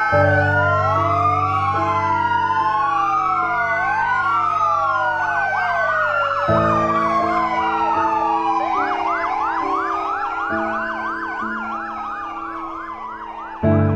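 Sirens of several fire engines and police cars wailing together in a tribute salute for a fallen firefighter, many rising-and-falling tones overlapping, with a faster yelping siren taking over about two-thirds of the way through. Long steady horn blasts sound underneath, starting at the beginning and again about halfway.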